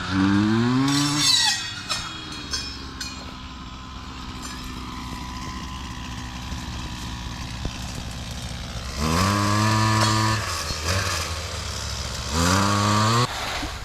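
Small gasoline engine running. It revs up briefly about a second in, settles to a lower steady speed, revs and holds higher around nine seconds in, then revs again near the end before dropping back sharply.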